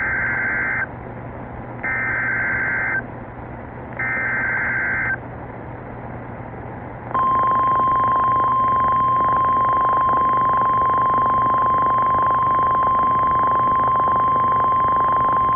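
NOAA Weather Radio emergency alert signal: three SAME header data bursts of about a second each, then, about seven seconds in, the 1050 Hz warning alarm tone, one steady high tone. It signals that a warning message is about to be read.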